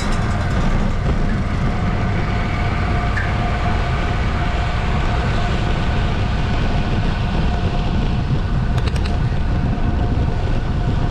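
Steady wind rush and rumble over the microphone of a bicycle racing at speed, with a faint steady whine running underneath and a few quick clicks near the end.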